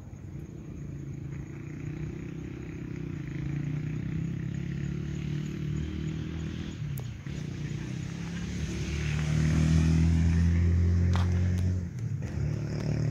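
An engine droning with a low, even hum that slowly grows louder and is loudest about nine to eleven seconds in, then drops off sharply, with a few short clicks just before the drop.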